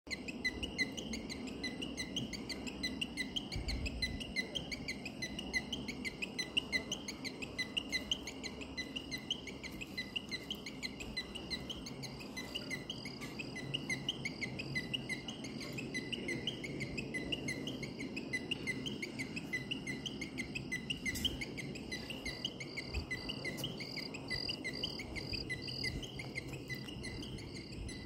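Crickets chirping in a steady, regular rhythm of short high chirps.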